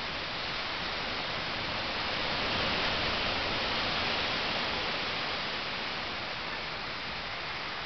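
Heavy storm surf breaking and washing up a sand beach: a steady rushing noise that swells for a few seconds in the middle.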